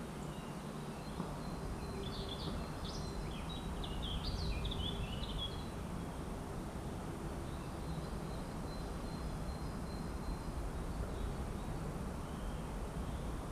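A songbird sings one quick, chattering phrase of high chirps about two seconds in, over a steady low background rumble.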